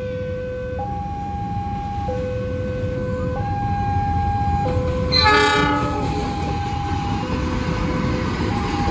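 Level-crossing warning alarm alternating between two tones, switching about every second and a quarter, over the low rumble of an approaching train. About five seconds in, the locomotive's horn sounds once, briefly, and is the loudest thing.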